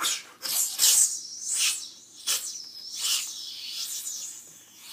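Hissing, whooshing sound effects that swoop up and down in pitch in a run of sweeps.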